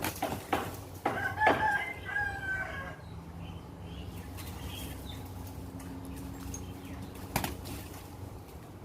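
A Bangkok game rooster flapping its wings, then a crow lasting about two seconds, starting about a second in; one more sharp flap or knock comes near the end.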